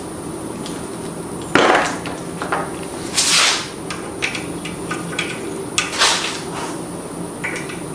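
Hand tools clinking and knocking as a wrench or socket is picked up and tried on a lawn mower carburetor's bowl bolt. There are two sharper knocks, about one and a half and six seconds in, among lighter metal clicks, and a brief rush of noise around three seconds in.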